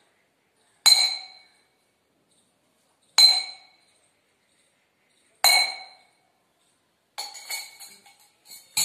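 Spoon struck against a drinking glass three times, about two seconds apart, each strike ringing briefly and dying away. Near the end comes a quick run of lighter clinks.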